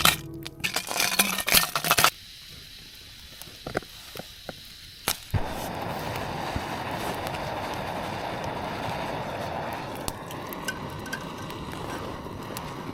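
Campfire burning: sharp crackles and pops at first, then a steady rushing noise from about five seconds in, with an occasional pop.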